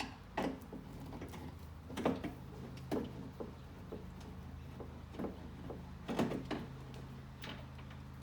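Irregular clicks and knocks of a large Phillips screwdriver working a tight screw out of a car door's inner panel, with metal parts being handled, over a steady low hum.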